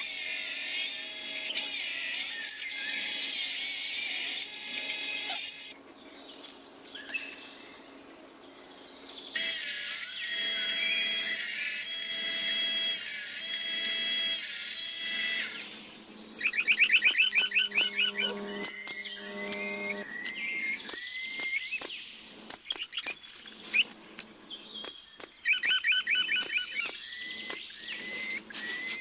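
Miniature benchtop table saw running and cutting small wooden strips, in two spells with a steady whine. From about halfway on come rapid trilled calls like frogs croaking, with scattered clicks and knocks.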